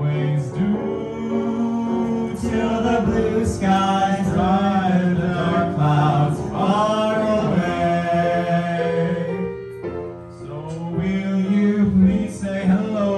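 Two voices singing a duet into handheld microphones through a PA, with a short break about ten seconds in.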